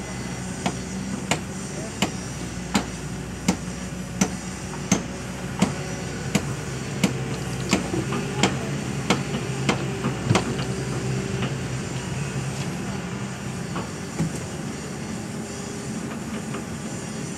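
Diesel engine of a Hyundai crawler excavator running steadily under load while it swings and dumps soil. Over it, a sharp metallic knock repeats about every 0.7 seconds for the first ten seconds, like hammering, with one more knock later.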